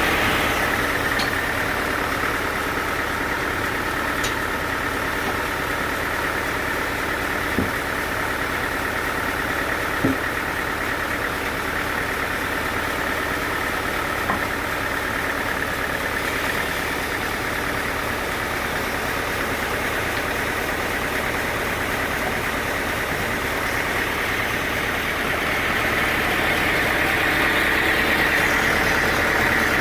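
Sawmill machinery running steadily, with a whine that eases off after the start and builds again near the end, and a few faint knocks in between.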